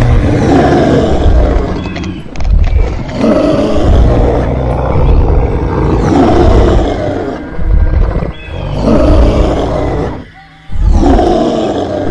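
Dinosaur roar sound effects, several roars one after another with short breaks between them and a brief pause near the end.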